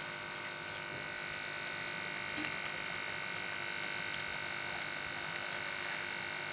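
Hot semolina and ghee sizzling steadily in a frying pan as sugar syrup is poured in and stirred with a metal spoon, over a steady hum.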